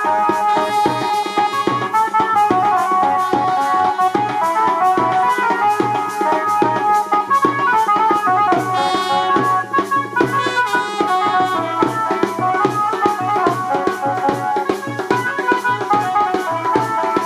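Upbeat dance music with a fast, steady drum beat under a continuous instrumental melody.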